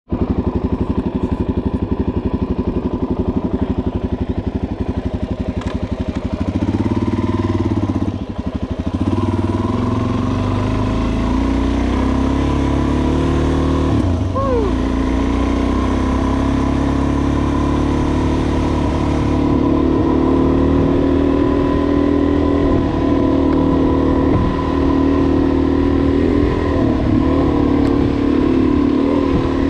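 Suzuki DR-Z400S's single-cylinder four-stroke engine, first ticking over with rapid even pulses, then pulling away about six seconds in and running at trail-riding speed, its pitch rising and falling several times with the throttle.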